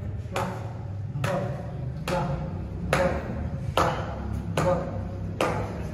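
A short, ringing struck note repeating evenly, seven times, a little more than once a second, over a steady low hum: a background music beat.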